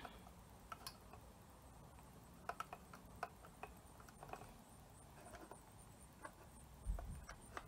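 Faint scattered clicks and taps as a wide natural-bristle brush lays molten encaustic wax onto small board panels, with a soft low thump about seven seconds in.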